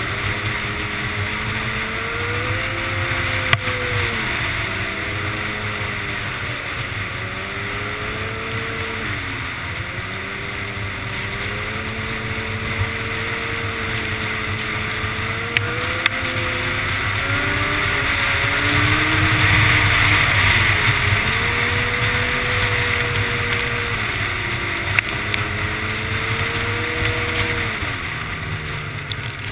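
Snowmobile engine running at speed under the rider, its pitch rising and falling again and again as the throttle is worked, over a steady rush of wind. A few sharp knocks cut through, and it grows louder about two-thirds of the way in.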